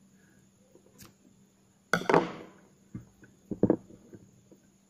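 Scissors cutting crochet yarn and being handled: a sharp click about a second in, a louder knock about two seconds in, and a few lighter knocks after.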